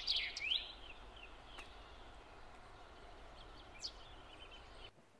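Small birds chirping, a few short rising chirps at the start, then faint steady background noise with an occasional faint chirp.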